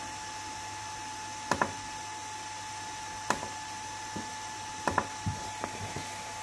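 Steady whir of a running bi-LED headlight projector and bench DC power supply under full load, likely their small cooling fans, with a thin steady whine. A few short sharp clicks come through it, two of them doubled.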